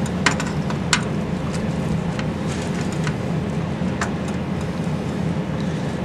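Steady low mechanical hum of running machinery, with two sharp clicks in the first second and another about four seconds in as hands work a wet rag around a brass expansion valve.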